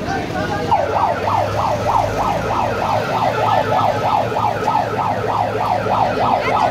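Electronic siren in a fast yelp, its pitch sweeping up and down three to four times a second, starting about a second in.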